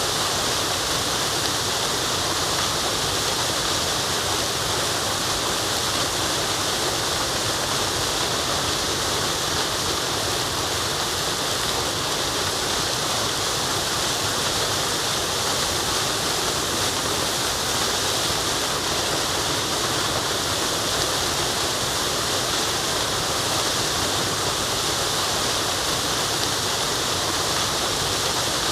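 Waterfall rushing steadily, an even, unbroken hiss of falling water that is strongest in the high range.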